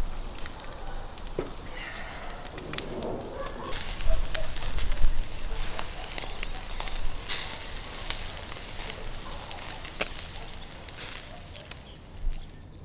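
Charcoal embers crackling under chicken grilling in a wire basket, with scattered sharp pops over a steady background hiss.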